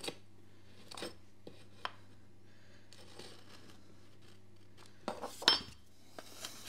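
A piece of skirting board and hand tools being handled while the fit is checked: a few light knocks and clicks, then a louder clatter about five seconds in.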